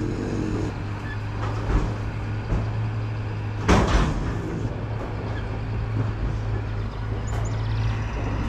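Truck diesel engine idling with a steady low hum, while cattle inside the steel livestock trailer knock against it: one loud metallic bang about four seconds in and a few softer thumps.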